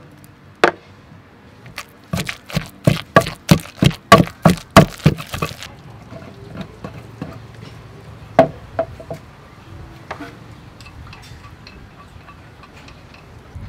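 Pestle pounding a soft chili paste in a clay mortar: one knock, then a quick even run of about a dozen strikes, roughly three a second, then a single knock and a few light taps and scrapes.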